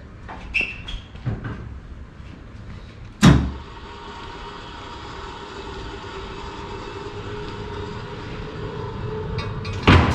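Hydraulic scissor car lift lowering a kei truck: a sharp clunk about three seconds in as it starts down, then a steady hum for several seconds, ending in a heavy clunk as it settles at the bottom.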